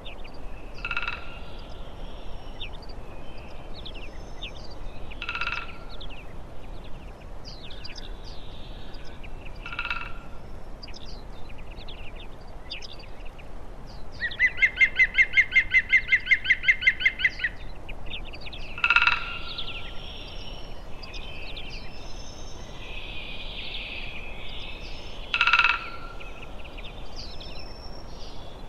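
Several wild songbirds singing and calling: scattered high chirps throughout, a short call repeated every few seconds, and a loud, fast trill of rapidly repeated notes lasting about three seconds about halfway.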